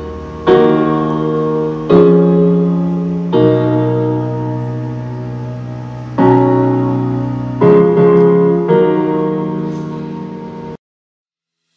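Music played through a Versamax 10 Bluetooth speaker: slow piano chords, about six of them, each struck and left to ring out. The music cuts off abruptly near the end.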